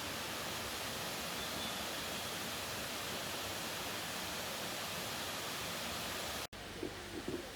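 Steady, even rush of running water, like a stream or small waterfall, that cuts off abruptly about six and a half seconds in.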